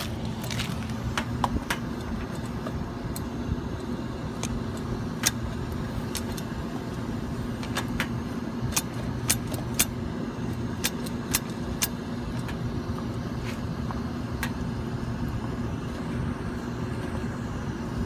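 Steady hum of a rooftop HVAC unit running, with scattered sharp clicks and taps of hand work on it, thickest about halfway through.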